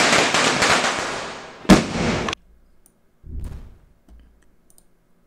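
Recording of firecrackers going off, played back: dense crackling with one sharp, loud bang about two seconds in. It cuts off abruptly just after.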